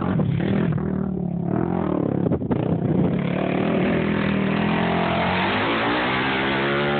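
Sport quad ATV engine running hard as it climbs through loose sand, easing off about a second in, then revving up with a rising pitch near the end as it passes close by.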